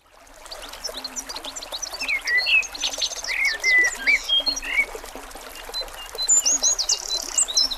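Several wild birds singing outdoors: quick chirps, downward sweeps and a fast trill, fading in at the start, with a low repeated call underneath.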